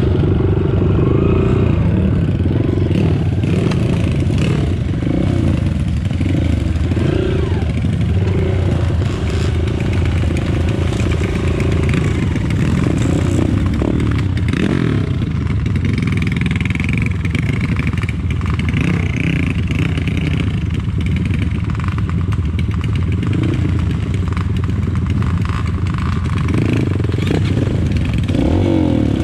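Trail motorcycle engine running and revving up and down as it is ridden over a trail, with short rattles and knocks throughout.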